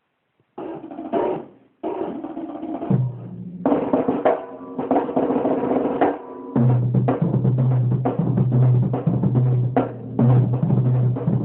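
A drum kit being played: snare, bass drum and rolls in quick strokes, with a short break early on before it carries on steadily. From about halfway in, a steady low tone sits under the hits. The recording is from a phone and has poor audio.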